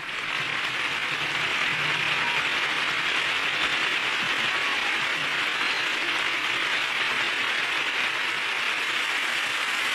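Concert audience applauding steadily, a dense, even clapping.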